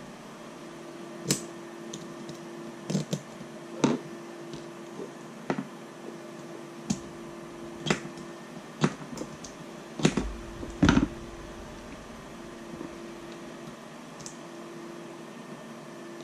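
Sharp, irregular plastic clicks and knocks as hands handle and work a small 3D-printed plastic gimbal part against a servo, the loudest two about ten and eleven seconds in. A faint steady hum runs underneath.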